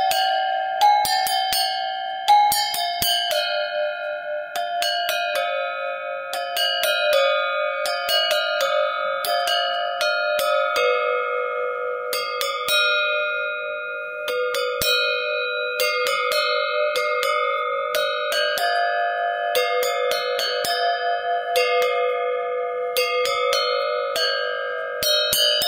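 Animal bells (livestock bells) ringing irregularly, several bells of different pitches struck a few times a second. Their ringing tones overlap into a continuous jangle.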